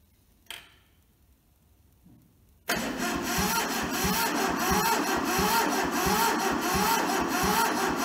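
A short click, then the Toyota SDK4 skid steer's diesel engine is cranked over by its starter motor for about five seconds without firing. It makes a steady, rhythmic chugging of about three compression pulses a second. The injectors are loosened, so the cranking is pushing fuel through to bleed air from the fuel system.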